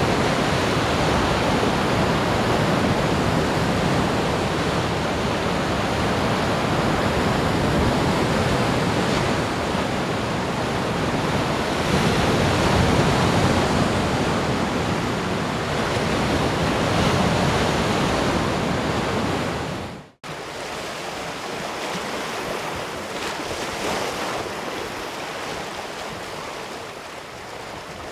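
Ocean surf washing onto a beach in a steady wash of breaking waves. About twenty seconds in it cuts out abruptly for an instant and resumes softer, with less low rumble.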